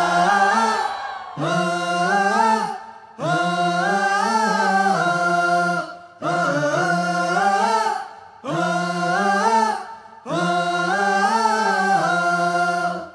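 Unaccompanied male singing, a chant-like melody in about six phrases with short breaks between them and no instruments underneath.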